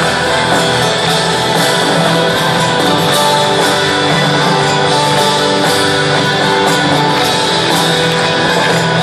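Full rock band playing live, guitars strumming prominently, heard over a stadium PA.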